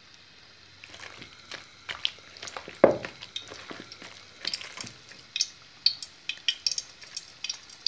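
Sliced potato and onion in besan batter being mixed by hand, with scattered wet clicks and one louder knock about three seconds in. From about halfway, short sharp crackles as strands of batter fry in the hot oil, a test of whether the oil is hot enough.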